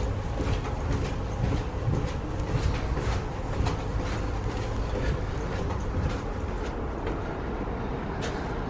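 Footsteps going down concrete stairs, light irregular steps about twice a second, over a steady low rumble.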